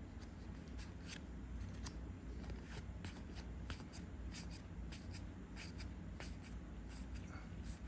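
Trading cards being handled and flipped through by hand: irregular soft flicks and slides of card against card, spaced unevenly, over a low steady background hum.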